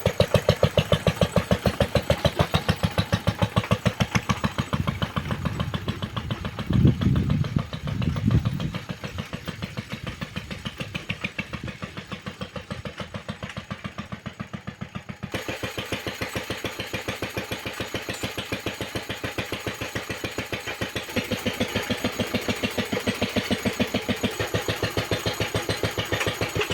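Engine of a homemade narrow-gauge locomotive running with a steady, even beat, briefly louder and deeper about seven to eight seconds in.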